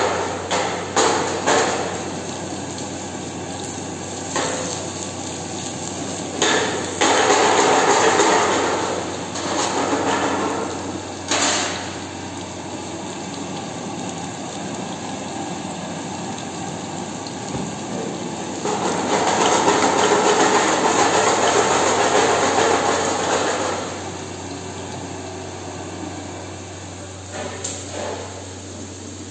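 Prawn masala frying in a pan over a commercial gas burner: a steady rush of flame and sizzle, several sharp knocks of utensil or pan on the range in the first dozen seconds, and two longer stretches of louder sizzling, the second about two-thirds of the way in.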